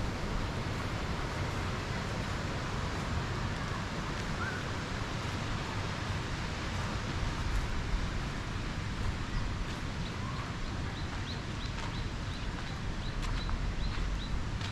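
Steady outdoor background noise of wind and rustling, with a small bird chirping in short high notes, a few near the middle and then a quick run of about two a second in the second half.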